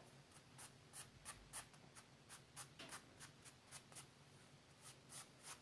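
Faint, quick scratching strokes, about fifteen short ones, as baking soda powder and carpet fluff are pushed around and picked apart by hand.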